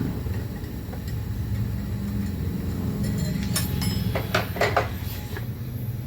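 Diesel engine running steadily, with a few sharp metallic clinks about three and a half to five seconds in.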